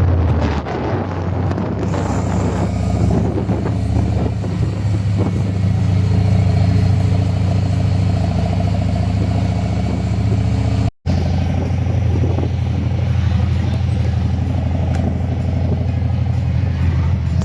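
Harley-Davidson V-twin engine and exhaust running steadily while the motorcycle cruises, with a deep, even engine note. The sound cuts out for a split second about eleven seconds in.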